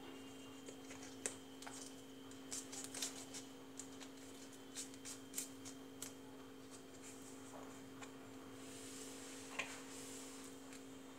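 Light scattered clicks and taps from a plastic gujiya mould and dough being handled and pressed shut, most of them in the first half. A steady electrical hum runs underneath.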